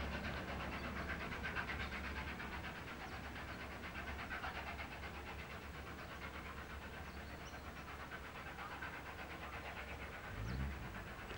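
South Australian Railways 520-class 4-8-4 steam locomotive working hard uphill, its rapid exhaust beats fading as the train pulls away.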